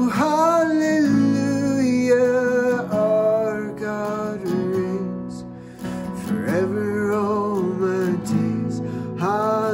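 A man singing a slow worship song in long held notes over a strummed Takamine acoustic guitar.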